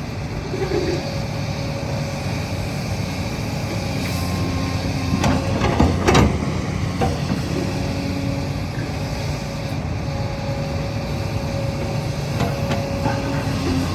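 Kobelco excavator's diesel engine running steadily under work, with a cluster of knocks from the machine about five to six seconds in.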